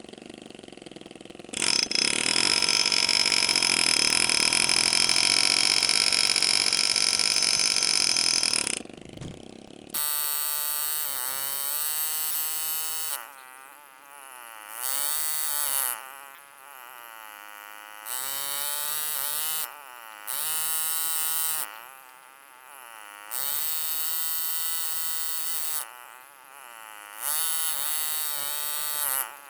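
A loud, steady machine whir lasting about seven seconds. Then an engraving handpiece buzzes in repeated bursts of one to three seconds, its stroke rate rising and falling within each burst, as a foot-controlled power graver does while cutting.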